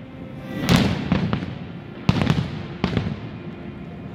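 Fireworks shells bursting: a loud bang about two-thirds of a second in, a few smaller reports after it, then a sharp crack about two seconds in and one more report near the end.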